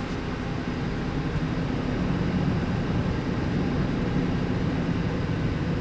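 Car engine idling steadily just after being started, heard from inside the cabin as a low, even rumble with a faint hum.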